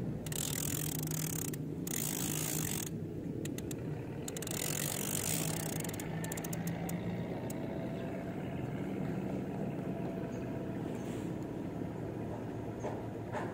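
An engine running steadily with a low, even drone. There is a hiss and scattered light ticks over it in the first few seconds.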